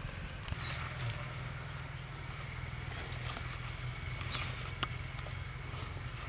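Knife and hands skinning a large raw seer fish: soft scraping and tearing as the skin is peeled from the flesh, with a few light knife clicks, over a steady low rumble.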